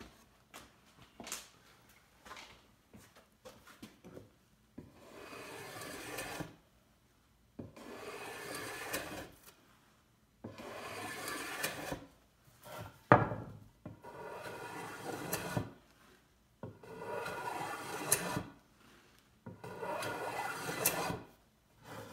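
Block plane cutting a chamfer along the edge of a pine stretcher: about six long strokes of two seconds or so each, after a few light knocks as the board and tool are handled. A sharp knock about thirteen seconds in is the loudest sound.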